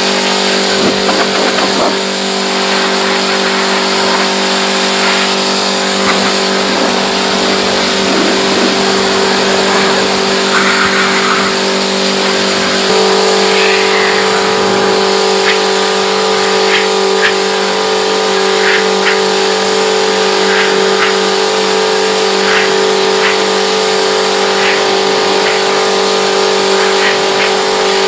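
Pressure washer motor and pump running steadily, its pitch shifting about halfway through as the load changes.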